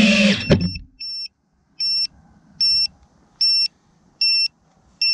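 FPV quadcopter's brushless motors running, then cutting off about half a second in. After that, the quad's buzzer beeps steadily, one short high beep a little under every second, the lost-model alarm of a disarmed quad.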